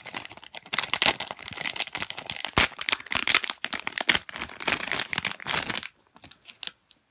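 Plastic bag of a squishy toy crinkling and rustling as it is unwrapped by hand, with one sharp crack about two and a half seconds in. It stops about six seconds in.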